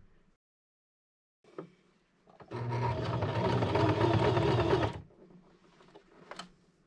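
Electric sewing machine running steadily for about two and a half seconds, stitching a short seam across joined bias-binding strips, with a light click just before it starts.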